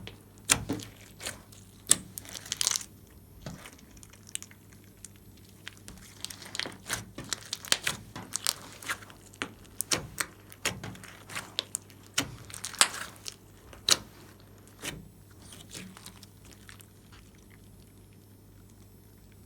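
Glossy slime being squished and stretched by hand: irregular sticky clicks, pops and crackles, growing sparser in the last few seconds.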